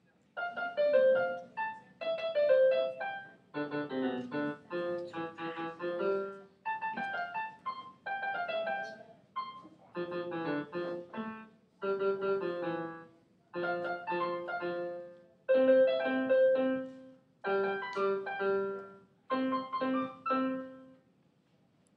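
Electronic keyboard playing a piano-like melody over chords in short phrases of a second or two, each followed by a brief pause.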